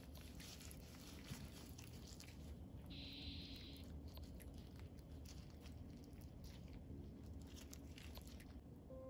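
Gloved hand rubbing spice, garlic and oil into raw chicken breasts, making soft, wet squishing and crackling, with a short hiss about three seconds in.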